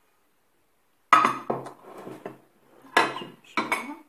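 Glass baking dish and glass bowl being set down and moved on a wooden table: a loud knock about a second in, then several more knocks and clinks.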